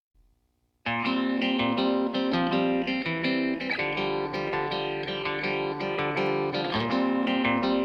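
Background music on plucked guitar, starting abruptly just under a second in after near silence.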